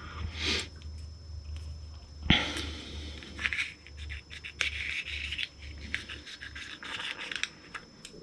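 Hands handling cut ball python eggs and hatchlings close to the microphone: rubbing and scratching with many small clicks, and one sharp knock about two seconds in, over a steady low hum.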